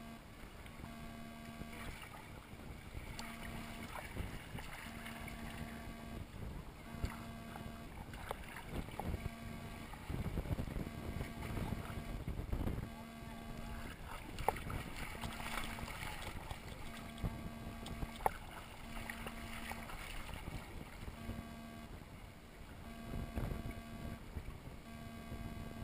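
Water sloshing and lapping against an inflatable tube drifting on a lazy river, with scattered small splashes and clicks, louder surges now and then, and faint voices of other bathers.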